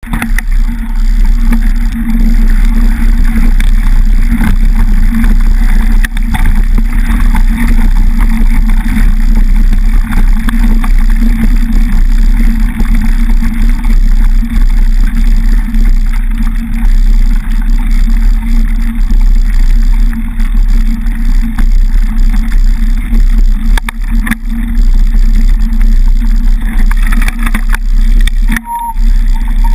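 Loud, steady rumble of wind buffeting the microphone and knobbly mountain-bike tyres rolling over a dirt and gravel track, heard from a camera mounted on the handlebars. The rumble drops out briefly near the end.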